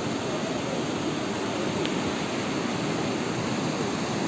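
Steady rush of the Alaknanda, a fast glacial river running over rocks.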